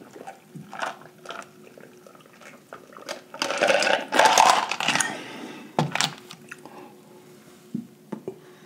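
A person drinking from a glass jar of an iced drink: soft mouth clicks, then a loud slurp lasting over a second about three and a half seconds in, followed by a couple of sharp knocks about six seconds in.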